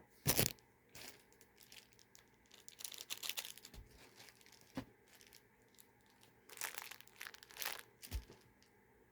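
Plastic packaging crinkling and rustling in several bursts as accessories are rummaged through, with a couple of small knocks.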